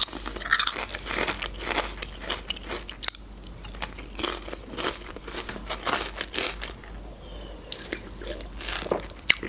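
Close-up chewing and crunching of ridged potato chips: many short, sharp crunches at an uneven pace. Near the end, a gulp from a drinks can.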